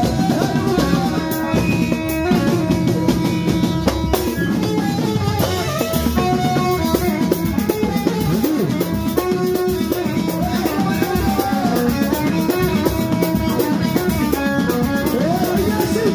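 Moroccan chaabi band music played live: a drum kit and percussion keep a steady, driving beat under a melodic lead whose notes slide up and down in pitch.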